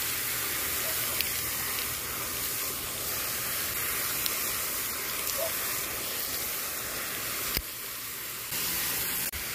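Lake fountain jet spraying water that rains back onto the surface: a steady hiss of falling spray.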